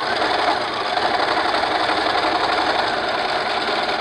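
Domestic electric sewing machine running at a steady speed, stitching a seam through layered fabric; it starts abruptly.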